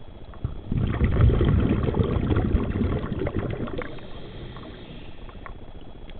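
Underwater recording of a scuba diver's exhaled breath: a burst of bubbles from the regulator rumbles and gurgles for about two seconds starting about a second in. It then fades into faint crackling and clicks.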